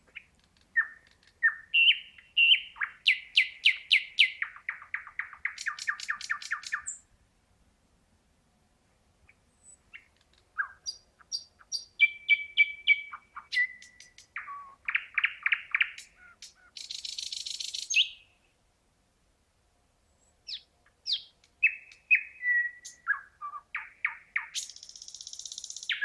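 Thrush nightingale singing: three loud song phrases with short pauses between them, each made of fast series of repeated notes, sharp clicks and whistles, two of them ending in a dry, high rattle.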